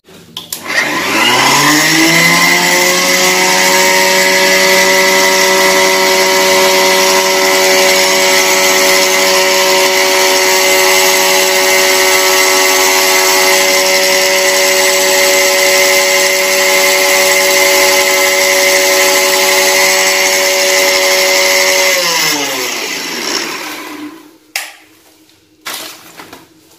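Sujata mixer grinder's motor spinning up, then running steadily with a high whine as it grinds dry rice and coarse flour, and winding down near the end. A few sharp knocks follow as it stops.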